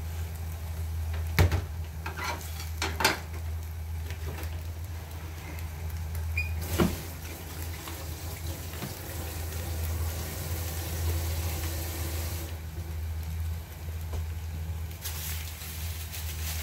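Food frying in a pan, with a hiss that swells for several seconds in the middle and again near the end. A few sharp clicks of a utensil against the pan or dishes are heard over a steady low hum.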